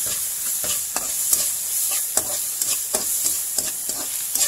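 Bagoong (shrimp paste) sautéing in hot oil with tomato, onion and garlic in a large pan: a steady sizzle, with a spatula scraping and tapping against the pan in irregular strokes several times a second.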